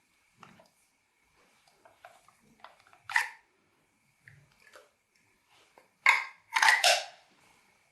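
Slime being squished and kneaded by hand: scattered small sticky clicks, then louder squelching pops about three seconds in and again in a cluster near the end.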